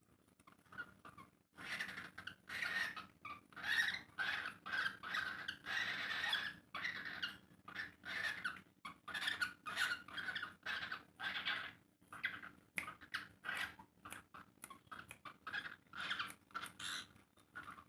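Pet parrots chirping and chattering in a quick string of short, shrill calls, louder in the first half and shorter and quicker later on.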